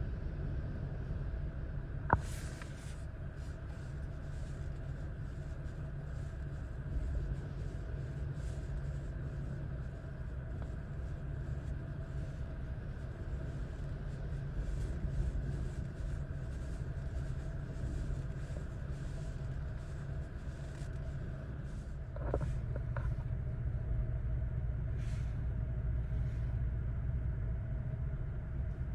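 Strong Santa Ana wind blowing steadily and gusting, with a constant low rumble and a hiss that swells with the gusts. A sharp click about two seconds in.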